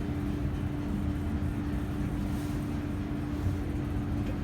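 Delta passenger elevator car travelling down between floors, heard from inside the car: a steady hum over a low rumble.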